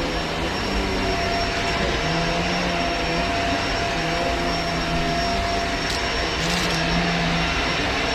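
Shark Rotator Pet upright vacuum running steadily on carpet: an even motor rush with a constant high whine, and a lower hum that swells and fades every second or two.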